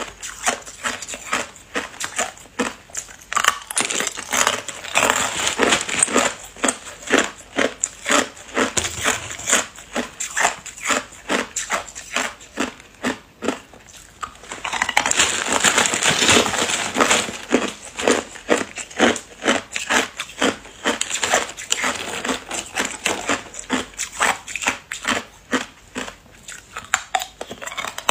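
Hard ice cubes being crunched between the teeth, a rapid run of sharp cracks and crackles picked up close by a clip-on microphone. The crunching eases to a lull a little before halfway, then comes back denser and louder as a fresh cube is bitten.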